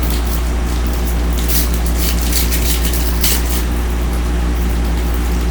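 Steady low electrical hum, with rustling and crinkling of trading-card pack wrappers and cards being handled, busiest from about one and a half to three and a half seconds in.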